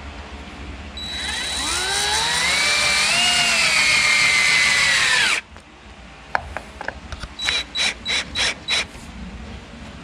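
Power drill driving a screw through a metal strike plate into a wooden door jamb. The motor whine rises as it speeds up, runs for about four seconds and stops suddenly. About five short bursts of the drill follow.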